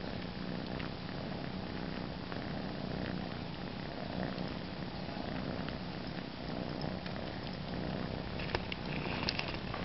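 Domestic cat purring steadily while suckling on a fleece blanket, with small sucking clicks from its mouth on the fabric. A few sharper clicks come near the end.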